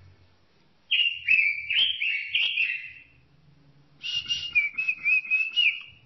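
A robin singing two loud whistled phrases: a run of about five quick downslurred notes about a second in, then a warbling, trilling phrase starting about four seconds in.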